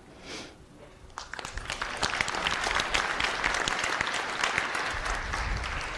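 An audience clapping, starting about a second in and going on steadily.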